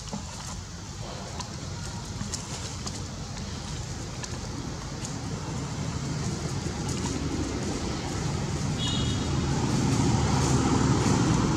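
A motor vehicle's engine rumbles steadily and grows louder as it approaches. A few faint crackles of dry leaves underfoot can be heard, and a short chirp sounds about nine seconds in.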